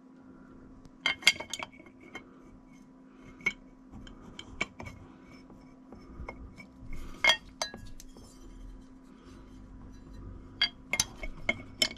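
Sharp metal clicks and clinks of the angle grinder's protective guard being fitted and turned on its mounting collar, coming in scattered clusters with a couple of louder groups about a second in and near the end. A faint steady hum runs underneath.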